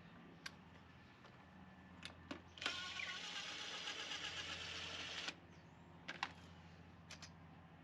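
Power drill running for about two and a half seconds, with a rattle and a sudden start and stop, typical of driving a screw into a storm door frame. A few sharp clicks of hardware handling come before and after.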